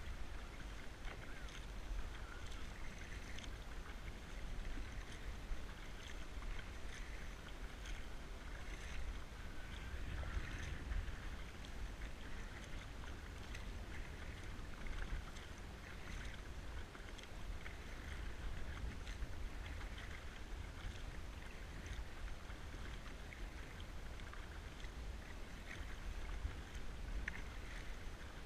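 Kayak paddle strokes: the blades dipping and splashing in calm sea water every second or two, water running off them, over a low rumble of wind on the microphone.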